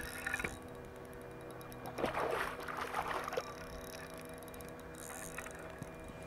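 Water splashing as a hooked smallmouth bass thrashes at the surface near the boat, loudest about two to three and a half seconds in, over a steady hum.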